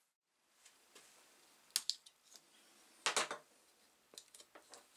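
Short clicks and clatters of metal handling: a clamp or pliers gripping a rusty hammer head in a plastic tub of rust-removal solution. The two loudest knocks come about two and three seconds in, with a few lighter ticks near the end.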